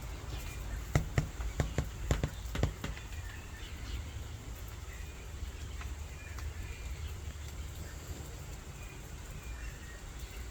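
Faint, short bird chirps scattered over a steady low rumble of wind or handling noise. About six sharp knocks come in the first three seconds.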